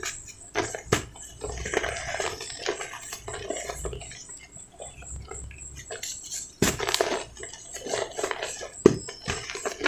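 Dry cement balls being crumbled and squeezed by hand in a basin of loose cement powder: soft crunching and sifting of powder, broken by sharp cracks as harder lumps give way, the loudest about two-thirds of the way through and again near the end.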